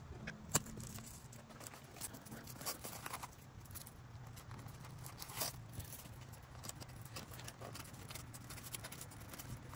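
Faint handling noises of a bag and strap being fitted to an e-bike frame: scattered light clicks, taps and scrapes, the sharpest about half a second in, over a low steady hum.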